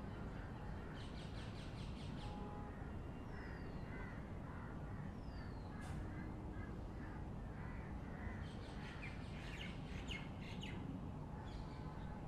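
Birds calling: clusters of harsh, crow-like calls about a second in and again from about eight to eleven seconds in, with a few short falling whistles between, over a steady low background rumble.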